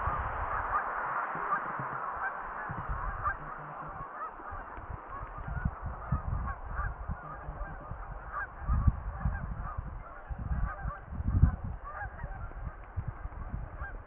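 A large flock of Canada geese honking: a dense chorus of overlapping calls at first, thinning to scattered honks. Intermittent low rumble underneath, loudest about eleven seconds in.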